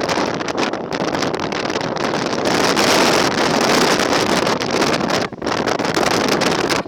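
Strong gusty sea wind buffeting the microphone: a loud rushing noise that swells and falls unevenly, dropping out briefly about five seconds in.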